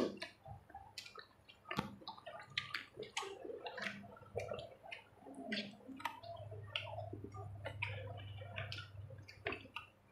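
Close-miked chewing and wet mouth sounds of people eating burgers: irregular smacks and clicks of lips and food.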